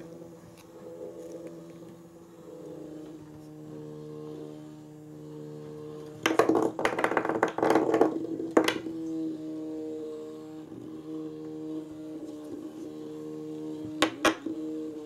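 Small battery-powered toy mouse's motor whirring steadily, with a burst of loud rapid rattling against the wooden floor for about two seconds midway and two sharp clicks near the end as the cat bats it.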